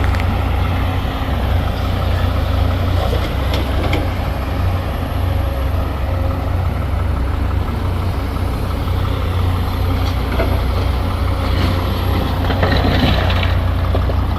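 Heavy truck's diesel engine running steadily with a deep, even hum, with a few brief clatters and a short hiss near the end.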